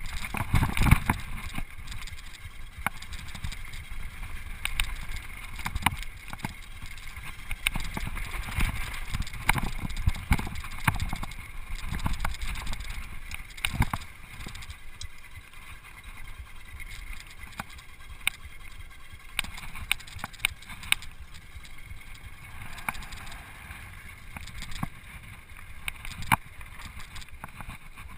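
Flatline downhill mountain bike ridden fast over dirt and gravel: tyres crunching, with frequent sharp knocks and rattles from the chain and suspension, and wind rumble on the microphone. It goes rougher and louder on the dirt trail in the first half, then quieter and smoother on the gravel road.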